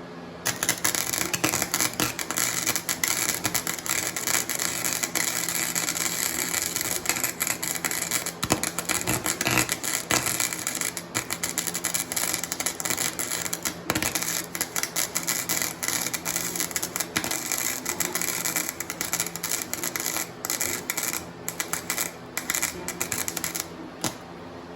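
Flux-core welding arc from a Harbor Freight Flux 125 wire-feed welder, crackling steadily while a bead is laid on a steel roll-cage tube. It starts about half a second in, breaks off briefly a few times near the end and stops shortly before the end.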